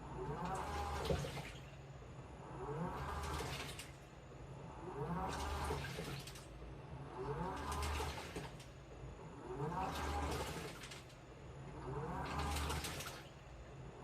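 Washing machine in its wash cycle: the motor whines up and the drum turns, sloshing water and clothes, then pauses, over and over about every two and a half seconds.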